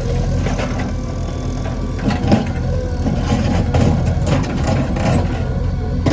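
JCB 3DX backhoe loader's diesel engine running steadily, with scattered knocks and rattles over it, the sharpest about two seconds in.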